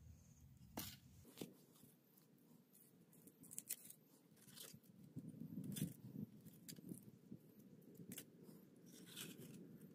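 Pieces of freshly made charcoal being lifted out of a mud kiln and set down on a charcoal pile, giving faint, scattered clinks and crunches.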